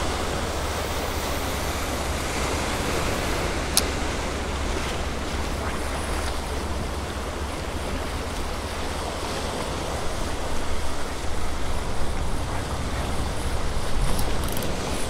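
Ocean surf washing over rocks, with wind rumbling on the microphone. A single sharp click about four seconds in.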